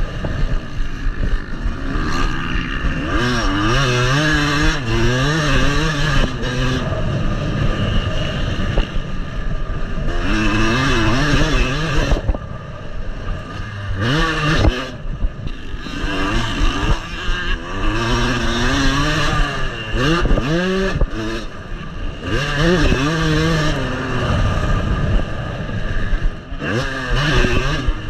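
Yamaha motocross bike's engine being ridden hard on a dirt track, its pitch climbing and falling again and again as it is throttled and shifted. A few brief lulls where the throttle is shut off.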